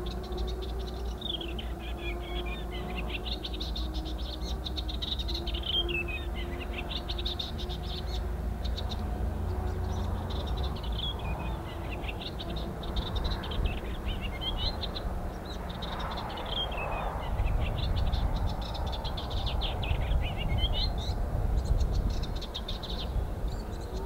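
A small warbler singing a fast, chattering song in repeated phrases with short gaps between them, over a steady low rumble.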